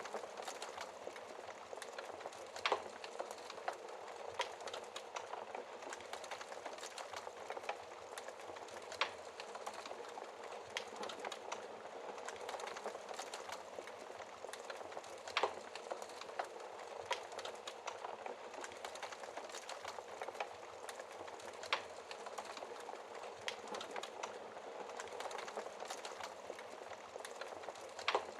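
Wood fire burning, heard through a glass fireplace shield: a steady hiss with constant small crackles and a sharper pop every few seconds.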